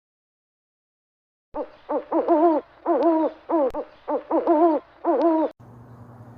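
Owl giving a rapid series of hoots, each call bending up and down in pitch, starting about a second and a half in and lasting about four seconds. It cuts off suddenly into a steady low hum.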